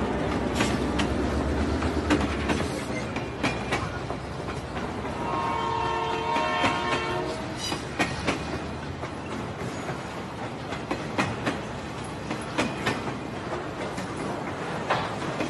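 A train running with a steady rumble and wheels clicking over the rail joints. About five seconds in, its whistle sounds a chord for about two seconds.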